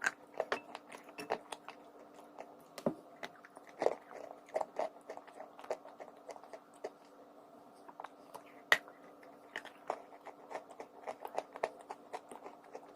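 A person biting and chewing crunchy chalk close to the microphone: irregular sharp crunches, several a second at times, with a few louder snaps.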